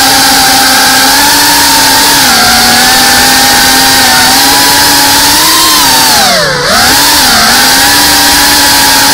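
GEPRC Cinelog 35 FPV cinewhoop's brushless motors and propellers buzzing loudly and steadily, heard close from the onboard camera. About six and a half seconds in the pitch drops sharply and climbs straight back, then dips slightly once more, as the throttle is cut and punched again.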